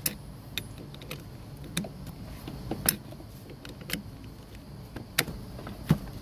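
Scattered clicks and knocks of plastic and metal seatbelt parts being handled and pushed down to lock into place inside a car, over a steady low hum.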